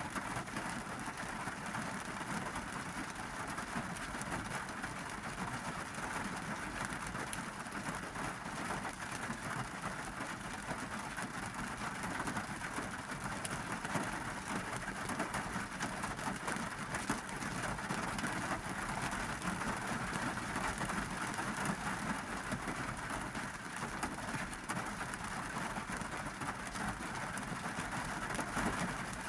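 Heavy summer monsoon rain drumming steadily on a car's roof and windows, heard from inside the cabin as a dense, even patter of countless drops.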